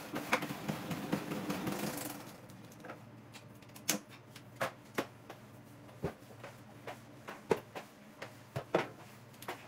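Plastic flat spin mop and bucket being worked: a dense swishing for about two seconds, then scattered sharp plastic clicks and knocks of the mop head and handle.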